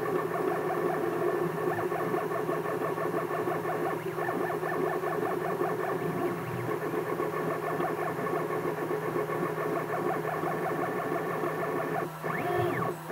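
3D printer's stepper motors whining as the print head makes quick short moves while printing: several steady tones with rapid stutters. Near the end a tone sweeps up and back down.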